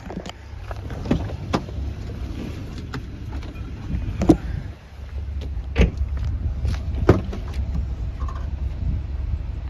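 Footsteps on asphalt, a sharp knock every second or so, over a steady low wind rumble on the microphone.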